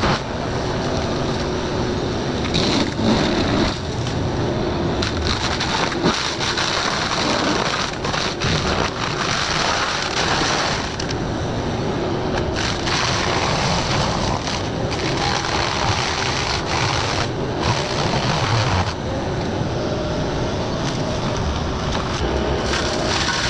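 Forestry mulcher head on an excavator running and grinding through brush and wood, with the machine's engine under load: a continuous dense grinding noise broken by occasional sharp cracks.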